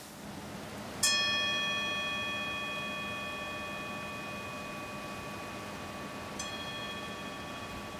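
Metal singing bowl resting on a man's head, struck with a wooden mallet about a second in and ringing on with several steady overtones that slowly fade. It is struck again, more softly, about six and a half seconds in.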